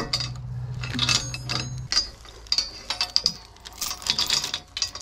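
Steel log chain rattling and clinking as it is handled and hooked around a log and the steel post of a log arch: a quick run of sharp metallic clinks. A low steady hum underneath stops about two seconds in.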